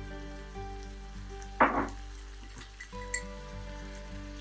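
Chopped onions and herbs frying in oil in a nonstick pan, sizzling, with one short loud burst of noise about one and a half seconds in. Soft background music with sustained notes plays underneath.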